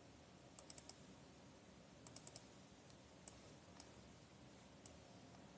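Faint, sharp clicks of a computer mouse over near-silent room tone: two quick runs of four clicks, then three single clicks spaced about a second apart.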